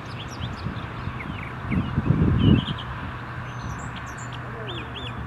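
Small birds chirping over the steady low drone of an approaching CSX freight train, led by a GE AC44CW diesel locomotive, still some way off. A brief, louder low rumble comes about two seconds in.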